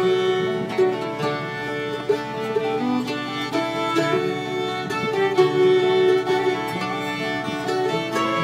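Live bluegrass instrumental: a fiddle leads the melody with long bowed notes and slides, over a resonator guitar played with a steel bar and a strummed acoustic guitar.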